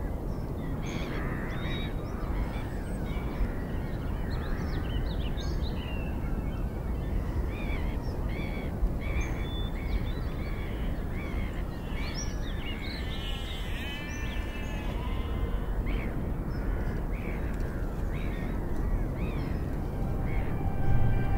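Many birds calling at once, short chirps and squawks scattered over a steady low rushing noise of wind and water; a little past halfway, one longer drawn-out call rises and falls in pitch.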